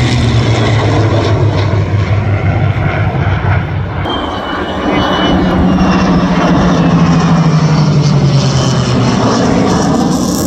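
Two P-51 Mustangs' Packard Merlin V-12 piston engines with an F-35A Lightning II jet in a formation pass overhead: a loud steady propeller engine drone whose pitch falls twice as the aircraft go by. A thin high whine joins in about four seconds in.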